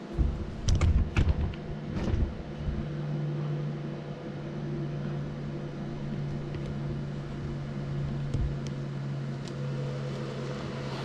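A few sharp clunks in the first two seconds, then a steady low machine hum.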